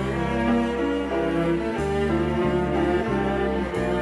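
Theme music with bowed strings: held notes over a low bass line that steps from note to note every second or so.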